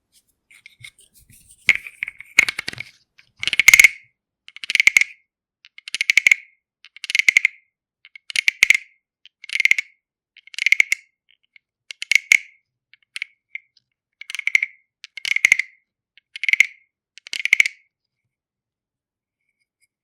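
Mini wooden frog (a frog-shaped wooden guiro) croaking as a stick is scraped along its ridged back. There are about fourteen croaks, roughly one a second, each a quick rattle of clicks, stopping a couple of seconds before the end.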